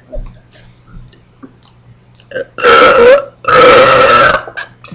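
Two loud burps, one right after the other, each under a second long, the second a little longer.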